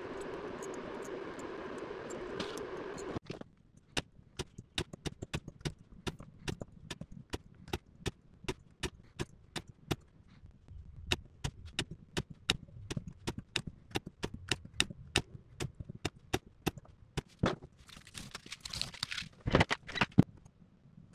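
Small metal parts being handled on a battery pack: quick sharp clicks and taps, about three a second, as nickel strips and cable ends are fitted onto the cell holders, with a louder scraping rustle and a few hard clicks near the end. A steady hum cuts off suddenly about three seconds in.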